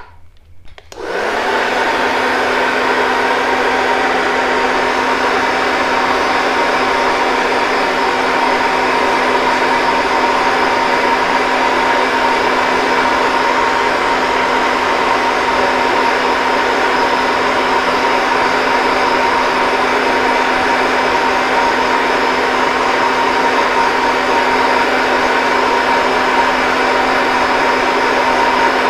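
Handheld hair dryer switched on about a second in and running steadily, a rush of air with a steady low hum, blowing over a wet toupee to dry it.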